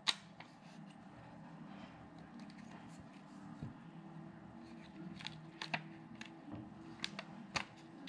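A few light clicks and taps of a 2.5-inch Toshiba laptop hard drive being worked out of its metal mounting bracket, with a sharp click at the start and several more near the end. A faint steady hum runs underneath.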